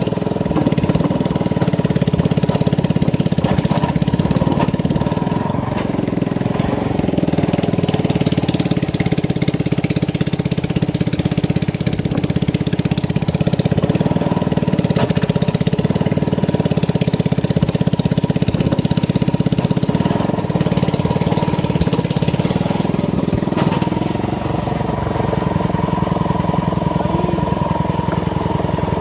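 A small engine running steadily, its sound changing slightly and dropping a little in level near the end.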